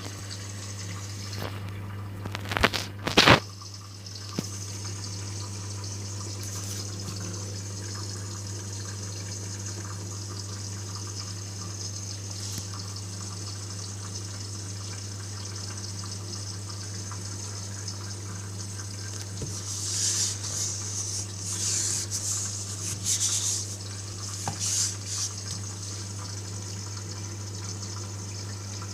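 AEG washing machine taking in water: a steady rush of water over a low hum, with a few sharp knocks about three seconds in and louder, uneven surges of water noise around twenty to twenty-five seconds in.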